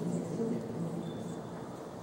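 Indistinct murmur of visitors' voices in a large stone church interior, with no single speaker standing out.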